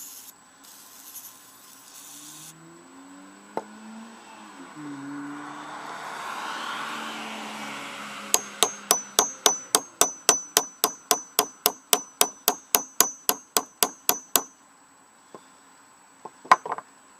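An aerosol can of penetrating oil hisses in two short sprays. Then a claw hammer strikes metal in a fast run of about two dozen ringing blows, about four a second, on a seized starter part that will not budge.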